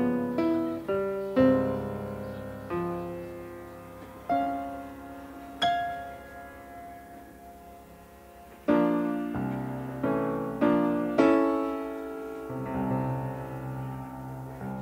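Piano music, single notes and chords struck and left to ring and fade, growing fuller and louder a little past halfway.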